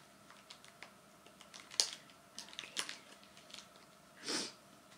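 Scattered light clicks and taps of hands handling a pair of sterling silver earrings and their small jewellery box, with sharper clicks about two and three seconds in and a brief swish near the end.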